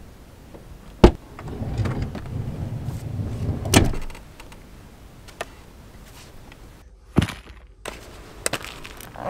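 Kia Ray's sliding rear door unlatching with a sharp click about a second in, rumbling as it rolls open, and stopping with a loud thunk near 4 s. A few lighter knocks and scuffs follow as someone steps out onto gravel.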